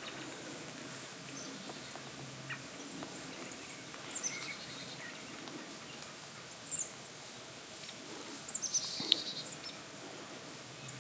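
Birds chirping now and then in short high calls over quiet outdoor air, with a low steady hum that stops after about two and a half seconds. A single sharp click near the end is the loudest sound.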